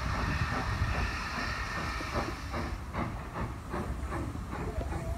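Steam locomotive approaching at low speed: a steady hiss of steam, then from about halfway a rhythmic beat of roughly three strokes a second as it draws near.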